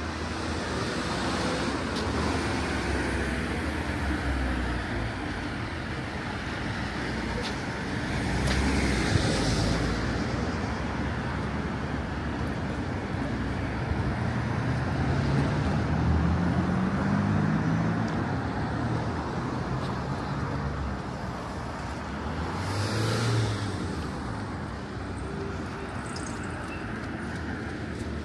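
Street traffic: a steady hum of cars on the road, with vehicles passing close by about a third of the way in and again near the end. Around the middle, one vehicle's engine climbs in pitch as it speeds up.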